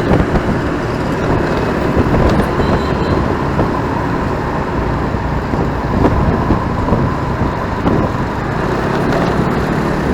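Riding a motorcycle through city traffic: steady engine, road and wind noise with the sound of surrounding vehicles.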